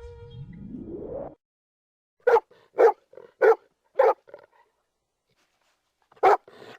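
Golden retriever barking: four short, evenly spaced barks, a pause, then two more near the end. Before them a rising whoosh ends about a second in.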